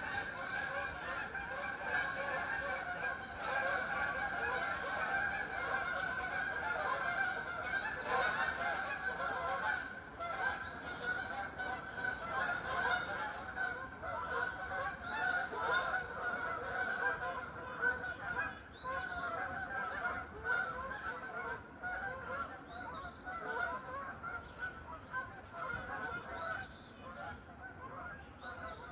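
A flock of Canada geese honking continuously, many calls overlapping, a little quieter after about ten seconds.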